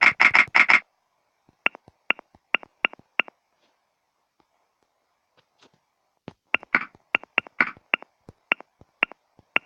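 Quick taps on a smartphone's on-screen keyboard while a text message is typed: a fast flurry of clicks at the start, a few evenly spaced clicks, a pause of about three seconds, then another run of clicks.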